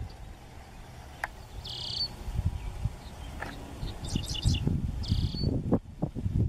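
Wind buffeting the microphone in uneven gusts, growing stronger near the end, with a few short high-pitched chirps now and then, including a quick cluster about four seconds in.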